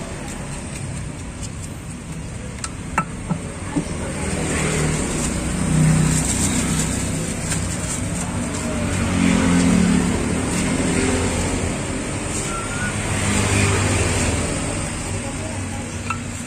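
Vehicles passing on the street, the low rumble swelling and fading about three times, with background voices. A few sharp knocks about three seconds in, from the stone pestle and spatula striking the stone mortar (cobek) as the rujak is mixed.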